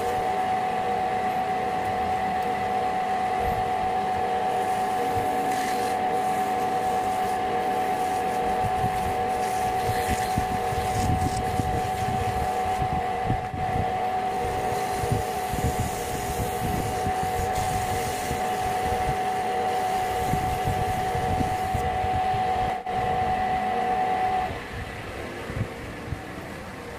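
Electric wood lathe running steadily with a constant motor whine, the wooden workpiece spinning in the chuck. Near the end the motor's tone cuts out and the lathe is left coasting down, noticeably quieter.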